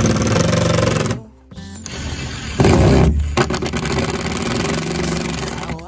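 Ryobi cordless drill boring through OSB sheathing at the corners of a marked door opening. It runs in a short burst of about a second, stops briefly, then runs again for about four seconds.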